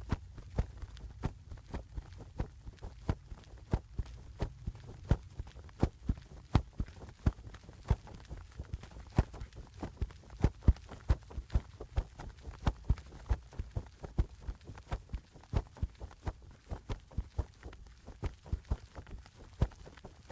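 A run of sharp, irregular taps or clicks, about two to three a second, over a low rumble.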